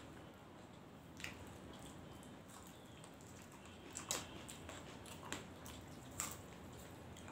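Quiet eating by hand: fingers mixing rice and curry on steel plates and people chewing, with a few faint, sharp clicks and smacks, the loudest about four seconds in.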